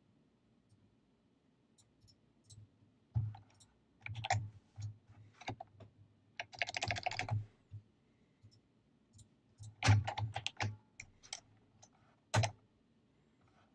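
Computer keyboard typing in irregular bursts of keystrokes, starting about three seconds in. There is a fast run of keys around the middle, another a few seconds later, and a last single stroke near the end.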